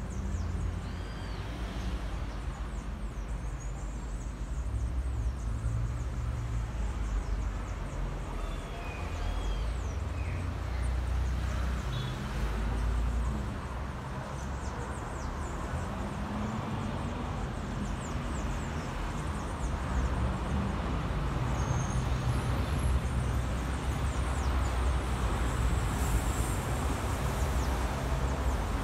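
Low steady rumble of street traffic, with an engine passing now and then and a few faint high chirps.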